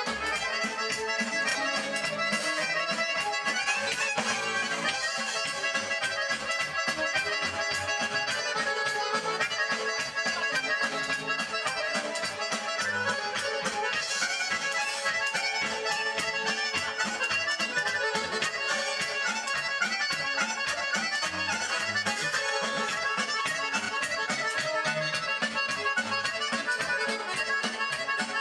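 Live accordion playing a lively traditional folk tune, backed by a band with a fast, steady beat.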